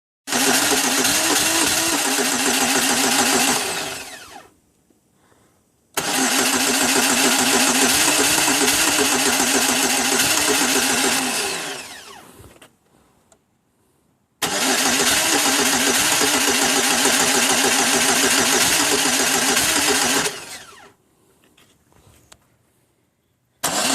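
A 2002 Pontiac Grand Am's starter cranking the engine without it catching, in three attempts of several seconds each with short pauses between. Each attempt winds down with a falling whine when the key is released, and a fourth begins near the end. This is a no-start: the engine will crank but will not fire.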